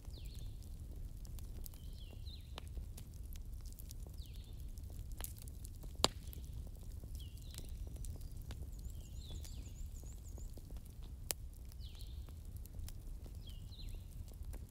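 Wood bonfire burning: a steady low rumble with scattered sharp crackles and pops, two louder pops about six and eleven seconds in. Short high falling chirps recur about every two seconds over the fire.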